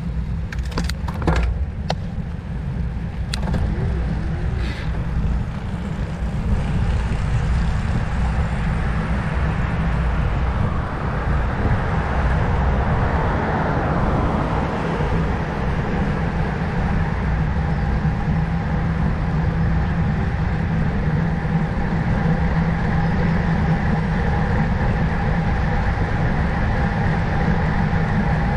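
Wind buffeting the microphone and road noise while riding, a heavy steady low rumble with a faint steady hum underneath and a few sharp clicks in the first few seconds.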